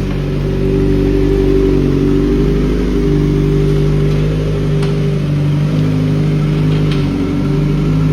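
Motorcycle engine running through an Arrow aftermarket exhaust, holding a steady speed with only slight changes in pitch.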